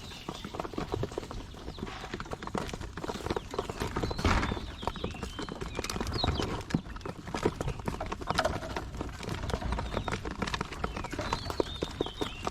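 A flock of farmed quail: dense, irregular tapping and clicking with short high chirps and calls scattered through it.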